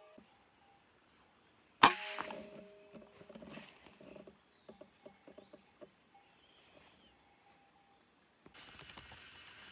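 A single sharp shot from a scoped hunting rifle about two seconds in, followed by a few seconds of light, irregular knocks and rustling.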